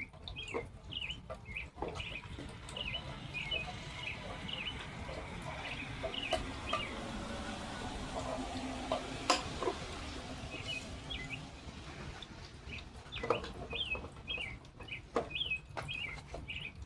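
Birds chirping in quick repeated runs, with a steady hiss through the middle and scattered sharp clicks and knocks from handling, the loudest about nine seconds in.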